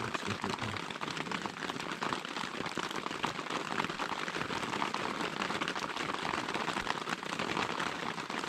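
Steady heavy rain falling, a dense, even patter of many small drops.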